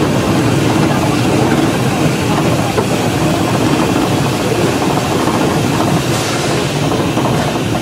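No. 6 Climax geared steam locomotive running, heard from inside its cab: a steady, loud noise of the engine and running gear.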